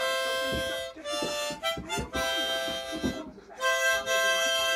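Harmonica played as a slow tune of held, reedy notes, changing pitch every half second or so, with a short break for breath about three and a half seconds in.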